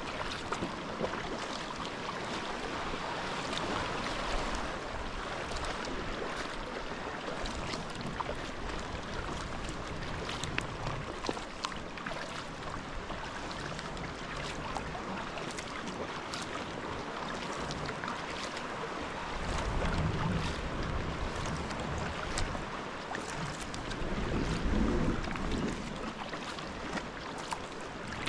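Water splashing and lapping around a sea kayak as it is paddled over calm sea, with gusts of wind buffeting the microphone twice near the end.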